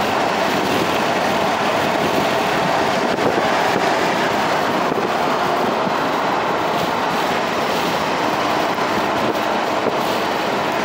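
Steady road and wind noise inside a car's cabin at freeway speed: tyres on the pavement and air rushing past the closed windows.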